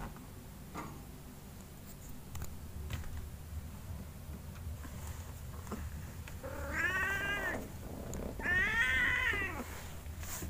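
Kitten meowing twice, two drawn-out calls about a second long each, the second louder, over a low steady hum.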